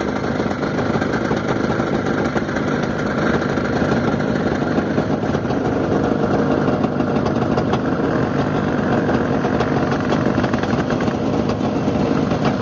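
1970 Viking snowmobile's two-stroke engine running steadily as the sled rides across the snow and comes up close.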